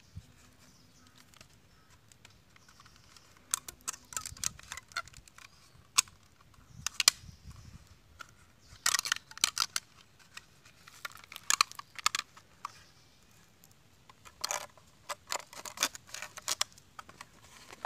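Thin plastic water bottle crinkling and clicking in the hands while a firecracker is pushed into its mouth, in scattered clusters of sharp crackles.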